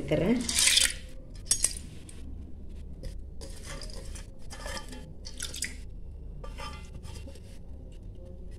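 Washed sago pearls tipped and scraped out of a stainless steel bowl into a pressure cooker: the loudest scrape comes about half a second in, followed by a single clink of metal and then a run of short, fainter scrapes.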